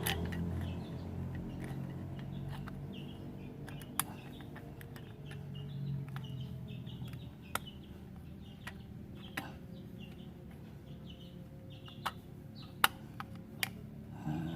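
Short bird chirps repeating over a low steady hum, with a few sharp clicks, the loudest near the end.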